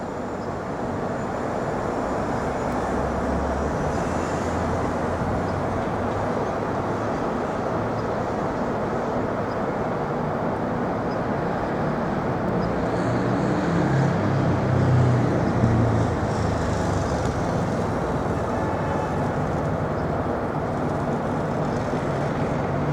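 Steady city traffic noise, vehicles running past, with a louder low rumble swelling about two-thirds of the way through.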